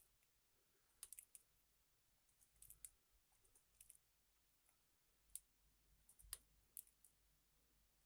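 Faint, irregular sharp clicks and taps, about a dozen of them, over near-silent room tone.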